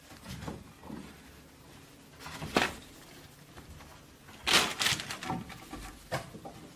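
Scattered rustling and short knocks as a baby monkey clambers about a wooden wardrobe among clothes and plastic bags. The loudest knocks come about two and a half seconds in and in a quick cluster a little after four and a half seconds.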